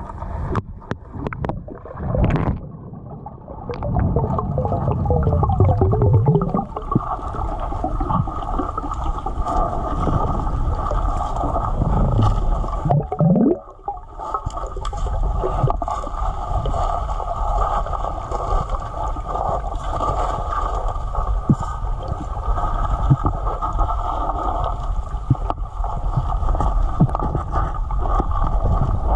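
Underwater sound picked up through an action camera's waterproof housing on a speargun: a steady, muffled rush of water, with scattered clicks and short bursts of bubbling in the first half.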